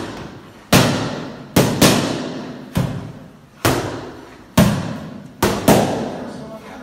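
Boxing gloves smacking against focus mitts: eight sharp hits, twice in quick one-two pairs, each with a short echo.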